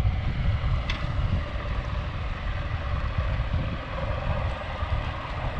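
Wind blowing across the microphone over open sea: a steady, uneven rumble with a hiss of wind and water.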